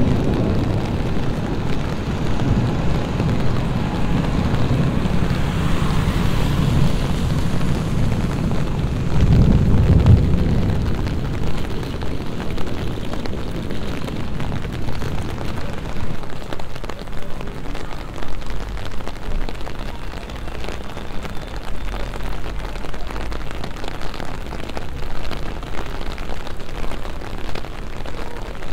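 Rain falling on wet pavement, with a long low rumble of thunder through the first ten seconds or so that swells about nine seconds in and then dies away, leaving the steady rain.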